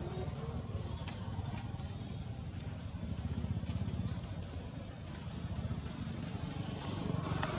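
Steady low outdoor rumble with a few faint clicks, and no monkey calls.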